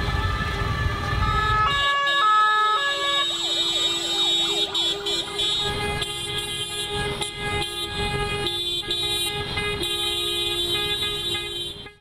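Many vehicle horns held down together with police sirens. A two-tone siren alternates briefly about two seconds in, followed by several seconds of fast rising-and-falling siren wails, with horns sounding throughout.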